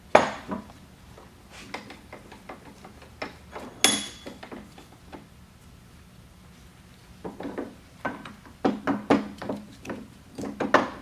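Metal clunks and knocks of a Crown PTH50 pallet jack hydraulic pump unit being handled in a steel bench vise, shifted in the jaws and lifted out. A single sharp ringing clink comes about four seconds in, and a run of quicker knocks fills the last few seconds.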